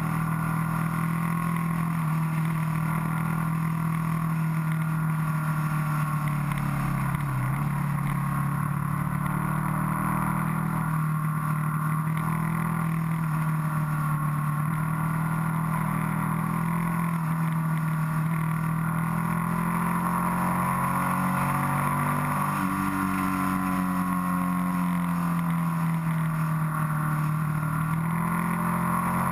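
Motorcycle engine running at cruising speed, heard from a camera mounted on the bike, its note rising and falling gently with the throttle.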